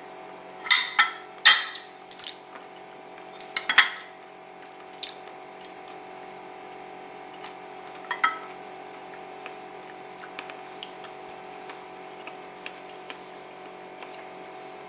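Metal fork clinking and scraping against a ceramic bowl: several sharp clinks in the first four seconds and another about eight seconds in, then only faint ticks over a steady hum.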